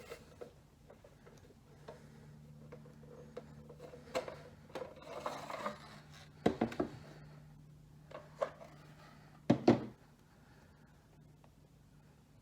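Hands handling and unpacking a Legend Raise buckle toy and its packaging: light rubbing and scraping with a few sharp knocks, the loudest two a little past the middle and shortly before the end.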